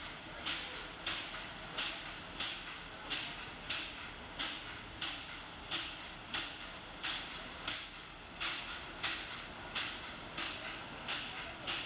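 A standing Pt47 steam locomotive giving out short hissing puffs of steam in an even rhythm, about one and a half a second, the typical beat of its steam-driven air compressor working while the engine is at rest.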